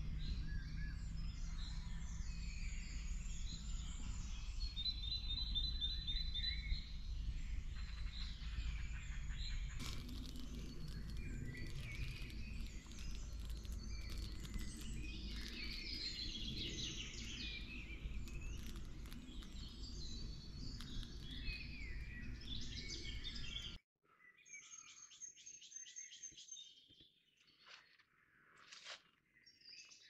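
Woodland birdsong: several birds chirping and singing at once, over a steady low rumble that cuts off suddenly near the end, leaving only the birds, quieter.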